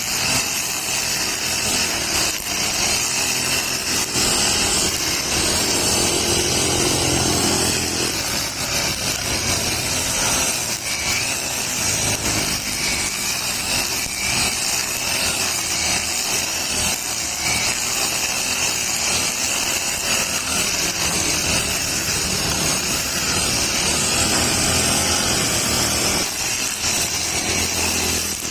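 Brush cutter's small engine running steadily, spinning a nylon string-trimmer head that cuts grass.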